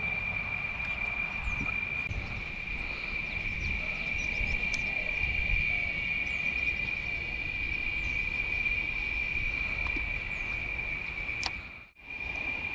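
Steady insect chorus, a continuous high-pitched drone, over a low rumble; the sound drops out briefly near the end.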